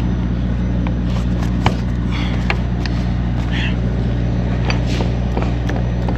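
Diesel engine idling steadily at the truck, with a few sharp clicks and knocks over it.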